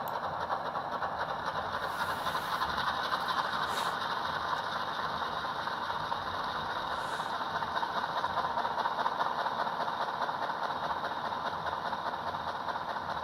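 HO scale model diesel locomotive's sound decoder playing a steady diesel prime-mover sound at notch 2 through its small speaker. The sound is nice and clean, with no speaker clipping in the heavy bass at this notch now that the decoder's CVs are set.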